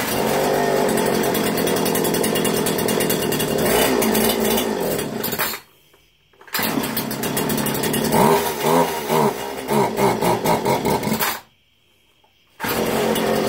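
Small two-stroke engine running, just after its carburetor low-speed screw was turned in one turn and backed out one; it runs better than before. It cuts out sharply twice and is running again each time about a second later, with the revs rising and falling between the breaks.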